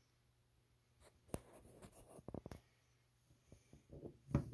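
A rusty 10-inch Pexto pipe wrench being handled on a wooden workbench. There is a knock about a second in, then a quick run of light taps and scrapes, and a few more knocks near the end.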